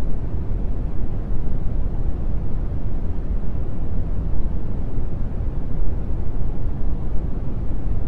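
Brown noise: a steady, deep hiss with most of its energy low down and little in the highs.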